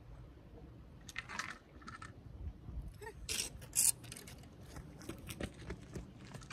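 Short bursts of scraping and clattering as a fishing rod and reel are jerked by a strong fish and grabbed, the loudest a sharp clatter nearly four seconds in, followed by a run of light clicks.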